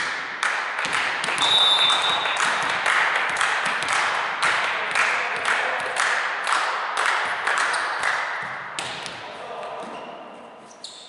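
Rhythmic clapping, about two claps a second, echoing in a large sports hall and dying away after about eight seconds, with a short high whistle blast about a second and a half in.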